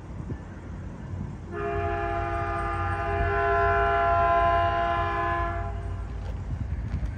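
A Caltrain diesel locomotive's air horn sounds one long, steady chord blast of about four seconds, starting about one and a half seconds in. A low rumble runs underneath.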